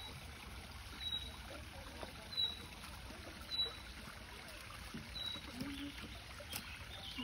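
Water trickling steadily from a small waterfall into a garden pond, with faint voices in the background.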